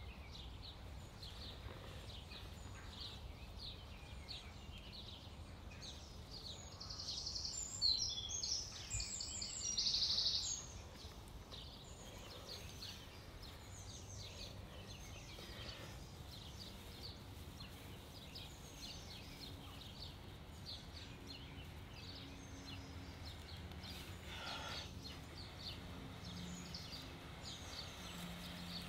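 Outdoor woodland ambience: small birds chirping again and again, with a louder high bird phrase from about seven to ten seconds in, over a low steady rumble of wind or background noise.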